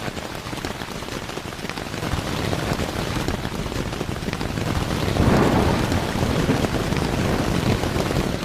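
Heavy rain pattering densely, swelling louder about five seconds in.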